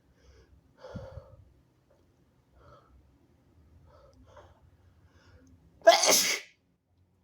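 A person's harsh sneeze, a single loud burst about six seconds in, after a few faint breaths as it builds. The sneezer is sick.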